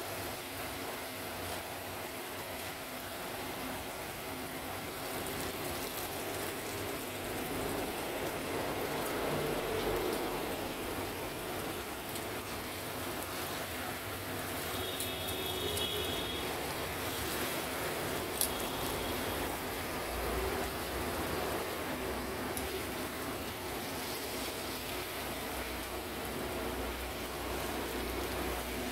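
Hot oil sizzling steadily in a frying pan as coated pieces of food are laid in and fried, with a single sharp click about two-thirds of the way through.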